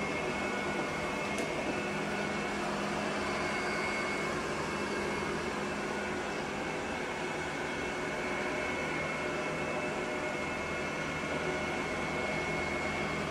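Robot vacuum cleaner running steadily, a whirring hum with a thin high-pitched whine.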